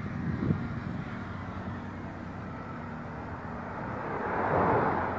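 Truck engine running steadily with a low hum, and a rush of noise that swells and fades about four to five seconds in.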